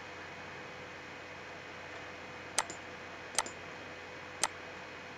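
Three sharp computer mouse clicks, about a second apart, from halfway in, over a steady hiss with a faint hum.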